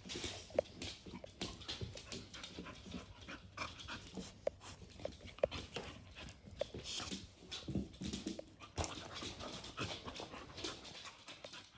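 An American Bully puppy and an American Staffordshire Terrier panting hard while being petted, with claws clicking and tapping on a hard laminate floor. A few brief whimpers come in between.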